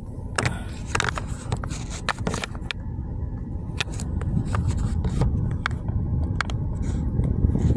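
Handling noise from a phone held by hand, fingers scraping and tapping on it in a series of irregular clicks, over the steady low rumble of a car cabin.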